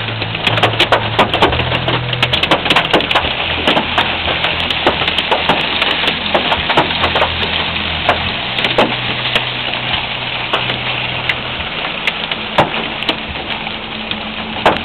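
Heavy hail pelting a truck and the ground: a dense hiss of falling hail with countless sharp, irregular clicks of stones striking. It eases slightly toward the end.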